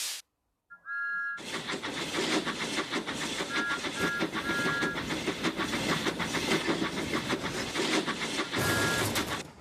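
Train sound effect: a brief two-note whistle about a second in, then a train running with a rapid clickety-clack rhythm, broken by short two-note whistle toots several times. It cuts off suddenly near the end.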